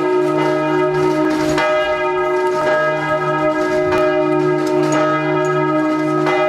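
Church bells ringing, several tones overlapping and ringing on, with a fresh strike roughly every two seconds.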